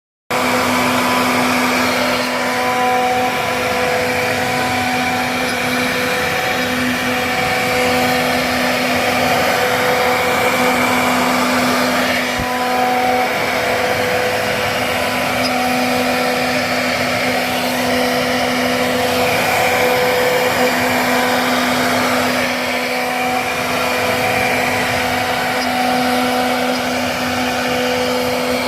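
An electric woodworking machine running steadily with a loud whirring noise and a whine that drops out and returns every few seconds.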